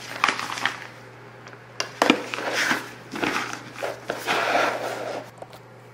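Plastic piping bag rustling and crinkling in several short bursts as it is handled, with a few light knocks.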